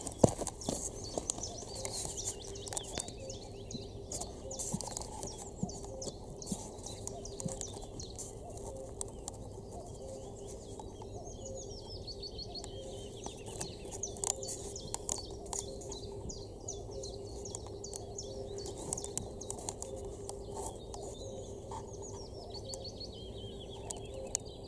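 Small birds chirping and singing, many short high calls and trills overlapping throughout, over a faint steady low hum.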